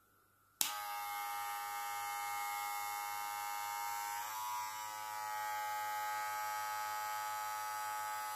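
Wahl Cordless Senior hair clipper switched on with a click and running with a steady hum. Its pitch rises slightly about four seconds in.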